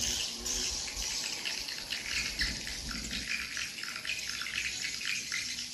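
Many swiftlets calling together inside a swiftlet house: a dense, continuous chatter of short overlapping chirps and clicks.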